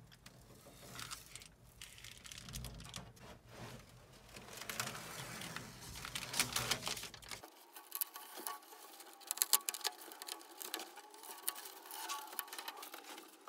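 Double-sided rug tape being unrolled and pressed by hand onto reflective bubble-foil insulation: faint, irregular crackling and rustling with small clicks.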